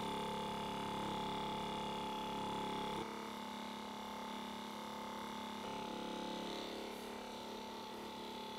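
Handheld percussive massage gun running while pressed against the thigh: a steady motor buzz with a rapid pulse, dropping a little in level about three seconds in.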